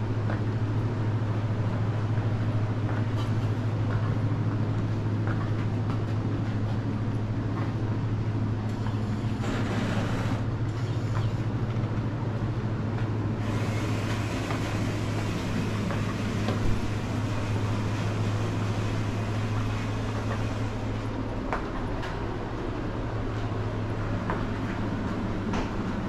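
A steady low mechanical hum with a hiss of moving air over it, the drone of indoor machinery such as ventilation or kitchen appliances. The hiss grows brighter from about halfway through for several seconds, with a few faint clicks along the way.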